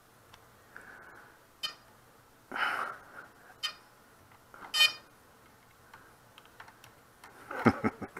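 XK Detect X380 quadcopter powering up on a freshly connected battery: a few short, high electronic beeps a second or two apart as it initializes and its gyros calibrate, with faint clicks from handling.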